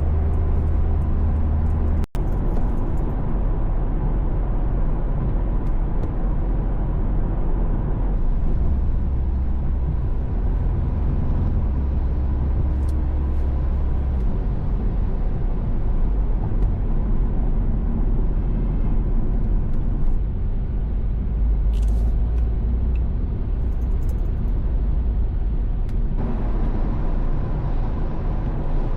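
Steady road and engine noise of a car cruising on an expressway, heard from inside the cabin as a deep, even rumble. The sound cuts out for an instant about two seconds in.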